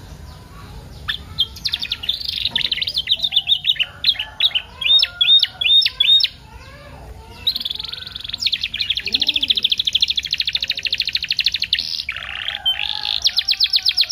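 Domestic canary singing a long varied song: fast rattling trills and a run of repeated sharp upswept notes, then a long even trill from about halfway to near the end, a brief break, and another fast trill at the end.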